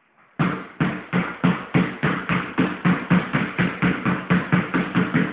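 Two basketballs dribbled hard in unison, both hitting the floor together on each bounce. It makes a steady rhythm of bounces that starts about half a second in and runs at about four a second, quickening slightly.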